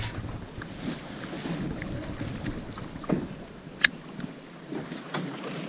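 Background noise aboard a small drifting fishing boat: wind and sea noise, with a few light knocks and one sharp click about four seconds in.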